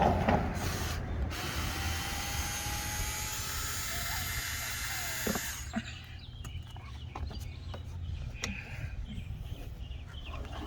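Cordless power drill/driver running steadily for about four seconds on a door-panel screw, stopping abruptly, followed by small clicks and taps of tools and trim being handled.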